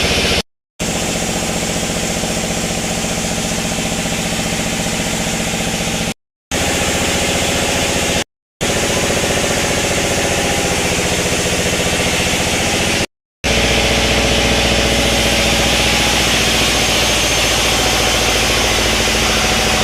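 Sawmill machinery running steadily with an engine-like drone, cutting out abruptly to silence four times for a fraction of a second each.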